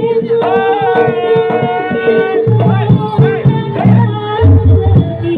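Live Javanese jaranan ensemble playing: a steady held note throughout, a high melody line in the first half, and heavy hand-drum strokes in the second half.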